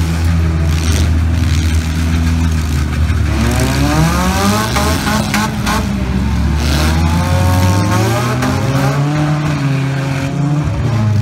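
Demolition derby cars' engines revving hard, their pitch climbing and falling several times, with a couple of sharp knocks about halfway through.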